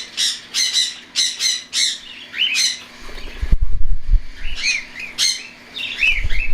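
Young cockatiels near weaning give rapid, harsh squawks several times a second, mixed with some rising-and-falling chirps. About halfway through comes a burst of low thumps and rumbling, the loudest part, before the squawking picks up again.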